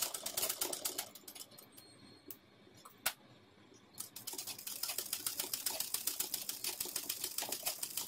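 Domestic sewing machine stitching fast in free-motion run-stitch embroidery fill, a rapid even clatter of the needle stroke. It stops about a second in, gives a single click in the pause, and starts stitching again about four seconds in.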